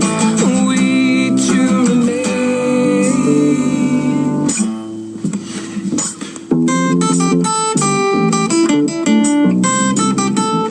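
Instrumental guitar passage of a band's song, led by acoustic guitar. Strummed chords ring on, ease off briefly about halfway through, then give way to single picked notes.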